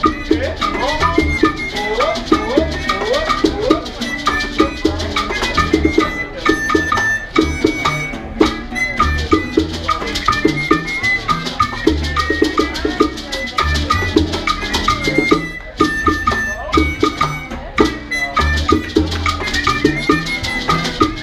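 Latin dance music in a salsa style: maracas and drums keeping a steady beat over a pulsing bass, with a melody that slides in pitch during the first few seconds.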